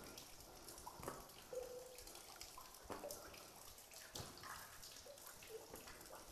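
Faint dripping of meltwater from thawing ice and icicles: short, pitched plinks of drops into pooled water, with a few soft knocks scattered between them.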